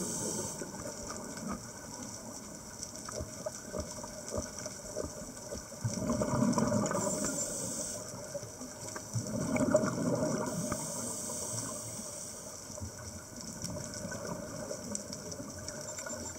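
Scuba diver breathing through a regulator underwater: a rush of exhaled bubbles about six seconds in and again near ten seconds, each followed by a high hiss as the next breath is drawn, with quieter underwater noise between.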